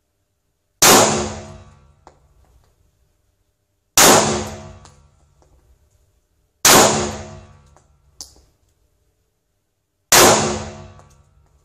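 Steyr M9 9mm pistol firing four single shots, slow and spaced about three seconds apart. Each shot rings off over about a second.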